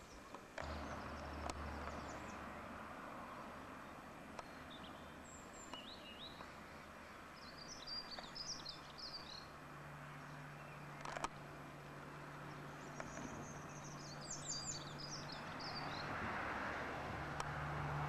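Outdoor ambience: a songbird sings three short runs of high chirps over a steady background hiss and low hum. There is one sharp click about eleven seconds in.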